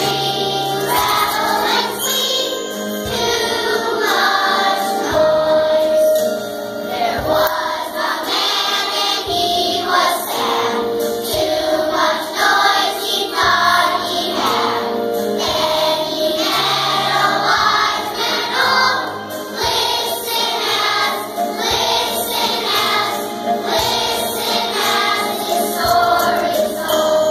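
Children's choir of second graders singing a song with instrumental accompaniment; the song ends near the close.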